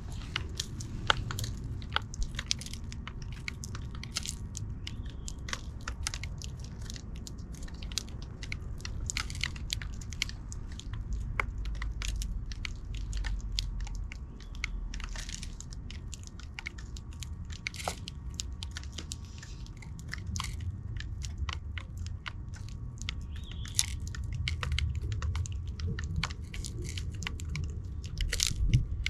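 Sparrows close to the microphone, making a steady run of sharp irregular clicks and taps with a few short high sounds, over a low rumble.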